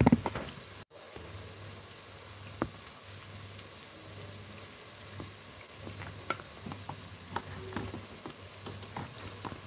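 Onions and tomatoes frying in oil in a large pot, a steady sizzle with scattered small pops and clicks that come more often in the second half. A loud brief rustle of the phone being handled comes at the very start.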